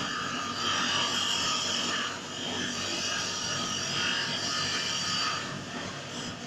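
Mini CNC wood turning lathe cutting a spinning wooden workpiece: a steady scraping hiss of the cutter shaving wood over the running motor, shifting in pitch as the tool moves, with a brief dip about two seconds in.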